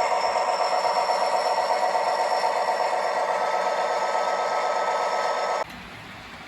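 Model train running on the layout: a steady motor whirr with a fast, even rattle of wheels on track. It cuts off suddenly near the end, leaving a much quieter low engine-like hum.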